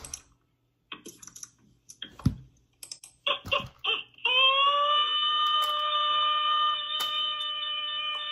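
A few scattered clicks and knocks, then about four seconds in a long, steady, high-pitched alarm-like tone slides up briefly and holds.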